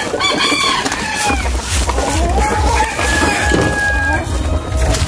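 Roosters crowing: one long crow right at the start and another about three seconds in, its last note held level for about a second.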